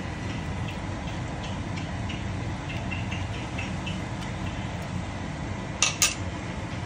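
Metal ladle stirring noodle soup in a stainless-steel pot, giving light scattered clinks over a steady low rumble, then two sharp clacks close together near the end.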